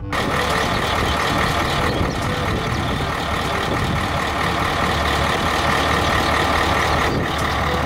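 Heavy dump truck's diesel engine running steadily, with a low hum and a steady higher whine.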